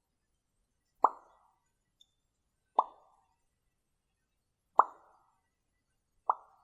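Four short, sharp pops, about one every one and a half to two seconds, each with a brief decay: homemade pop sound effects being recorded.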